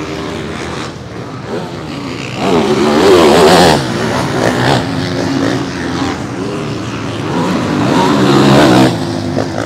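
Motocross bikes racing past, their engines revving up and down through acceleration and gear changes. They are loudest from about two and a half seconds in to nearly four seconds in, and swell again near the end.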